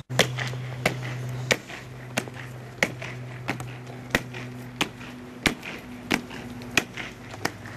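Honour guards' boots striking a stone pavement in slow, measured marching step: sharp, evenly spaced strikes about every two-thirds of a second, with fainter footsteps between them and a steady low hum underneath.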